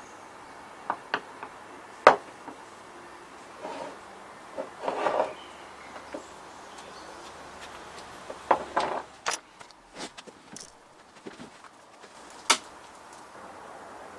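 Miniature glass bottles being handled and set down on a wooden workbench: scattered knocks and clinks, the sharpest about two seconds in and again near the end.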